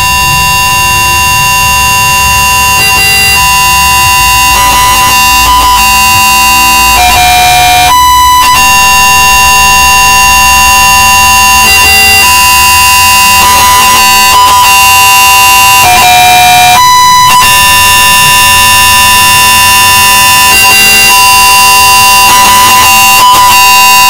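Very loud, harsh electronic droning made of steady high tones, like a siren or a bagpipe drone. One tone drops in and out, and the drone breaks off briefly about every nine seconds, then comes back in a repeating cycle.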